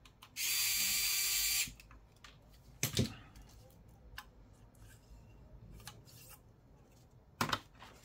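Electric precision screwdriver whirring for about a second as it backs a screw out of a laptop hard drive's mounting bracket. A sharp knock follows about three seconds in, and light clicks near the end as the drive and bracket are handled.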